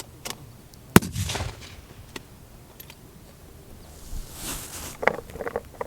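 A single target rifle shot about a second in, its echo trailing off over about half a second. A few light clicks follow near the end.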